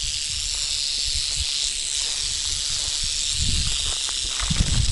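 Rattlesnake rattling without a break, a steady high buzz: the defensive warning of an agitated snake just set down. Footsteps thud in the grass near the end.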